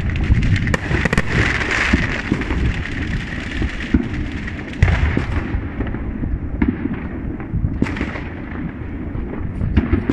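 Fireworks going off in quick succession: a continuous crackling and popping with many bangs, the sharpest about five seconds and about eight seconds in.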